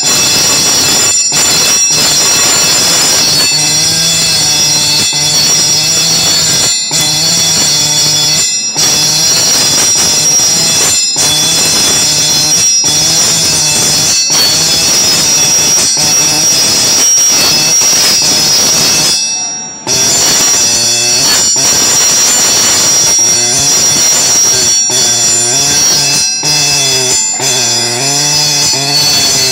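Pneumatic dot-peen marking machine's stylus hammering rapidly into a cast metal part as it punches out characters, a loud, steady high-pitched buzzing whine. It breaks off briefly between characters and stops for a moment about twenty seconds in before starting again.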